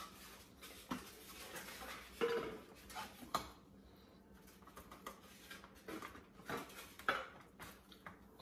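A spoon scraping and tapping in a disposable aluminium foil pan while spreading refried beans, heard as a series of irregular clicks and short scrapes.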